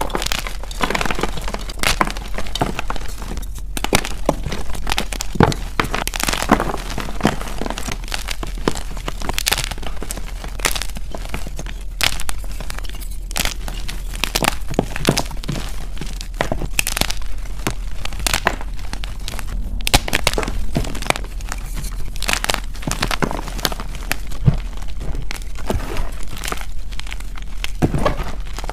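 Dip-dyed gym chalk blocks being snapped and crushed by hand: a dense run of irregular sharp cracks and crunches over continuous powdery crumbling.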